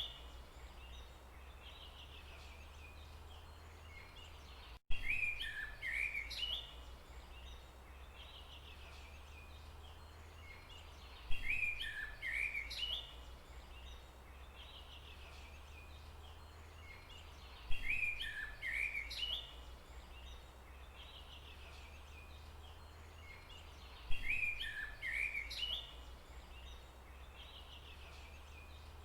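A songbird's song, a phrase of quick chirps lasting about two seconds, recurring four times at even spacing of roughly six and a half seconds over a steady low hum; each repeat looks the same and starts with a sharp click, as in a looped forest-ambience recording.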